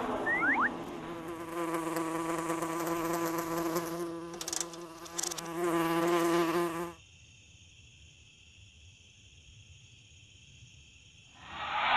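A cartoon housefly buzzing steadily, louder just before it cuts off suddenly about seven seconds in. After a few seconds of near quiet, a loud noisy sound rises near the end.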